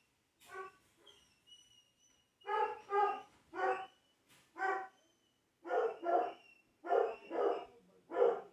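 A dog barking repeatedly: about ten short barks, several in quick pairs.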